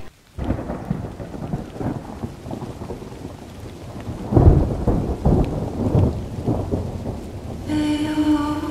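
Rain falling with a roll of thunder, loudest about four and a half seconds in. Near the end a steady held tone comes in.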